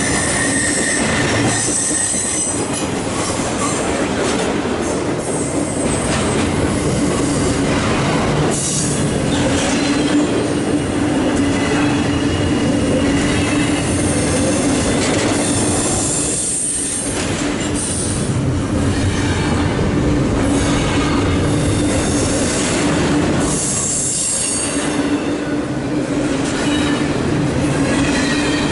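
Intermodal freight train cars, loaded with highway trailers and double-stack containers, rolling past at close range: continuous steel-wheel-on-rail rumble and clatter, with a steady hum and intermittent high-pitched wheel squeal.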